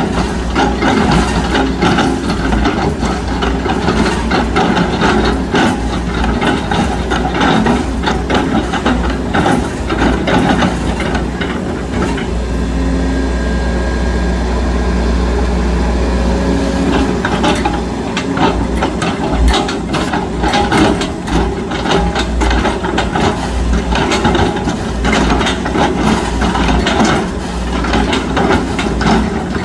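Sumitomo hydraulic excavator working: the diesel engine runs steadily under load, with frequent knocks and clatter from the machine at work. Midway there is a smoother stretch of several seconds with a faint steady whine.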